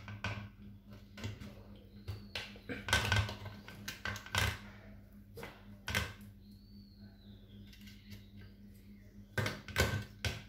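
Scattered clicks and light clatter of hard plastic and metal computer parts being handled on a workbench, with a quick cluster of knocks near the end as a CPU cooler is set down onto the motherboard. A faint steady hum runs underneath.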